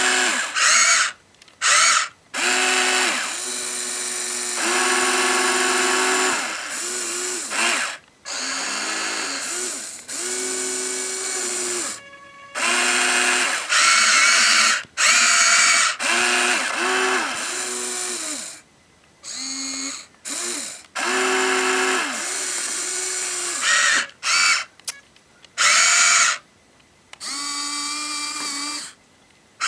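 Huina 1593 RC excavator's small electric gear motors whining in many short stop-start bursts as its functions are worked, some bursts sliding up or down in pitch, with brief pauses between them.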